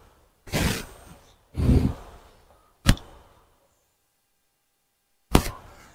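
Two short breathy sighs, then a sharp click about three seconds in and another short knock near the end.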